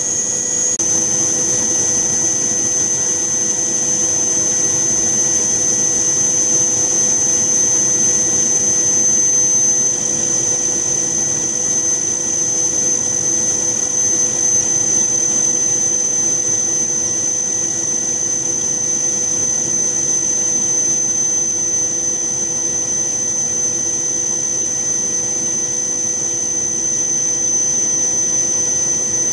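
Turboprop aircraft in flight: a steady engine and propeller drone with a constant high whine over it.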